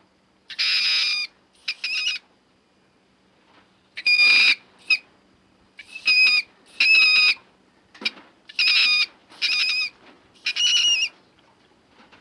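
Mink screaming: a run of about nine short, shrill, high-pitched screams with gaps between them, several coming in quick pairs.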